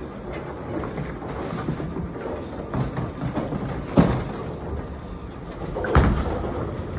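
Steady bowling-alley rumble, with a sharp knock about four seconds in and a heavy thud about two seconds later as the bowling ball is laid down onto the wooden lane.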